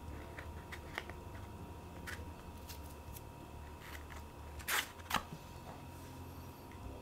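A MagSafe card wallet handled by hand: soft scattered taps, rustles and clicks of the wallet and its card, with two sharper, louder clicks about half a second apart a little under five seconds in.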